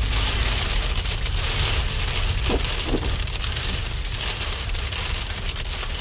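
Heavy rain pelting a car's roof and windscreen, heard from inside the car: a dense, steady patter of countless small hits.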